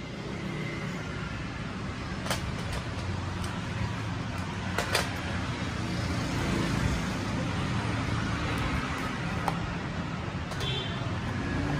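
Steady road-traffic noise in the background, with a few sharp clicks from the new SSD's retail packaging being opened.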